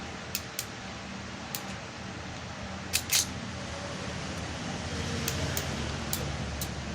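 A cutting tool snipping the ends of the lined-up twisted-pair Ethernet cable wires to length: a scattering of sharp clicks, the loudest pair about three seconds in.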